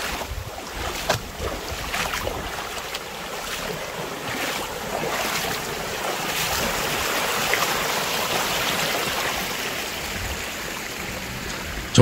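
Mountain stream running over rocks and small cascades, a steady rush that grows a little louder in the middle.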